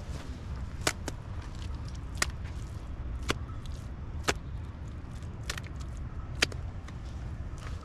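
Sharp slaps of handfuls of wet mud being thrown and pressed onto a mud-and-stone wall, about six of them spaced roughly a second apart, over a low rumble of wind on the microphone.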